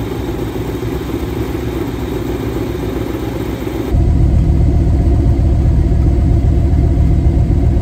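The 1959 Dodge's engine running steadily, heard at its exhaust tailpipe. About four seconds in it turns louder and deeper as the sound cuts to the tailpipe.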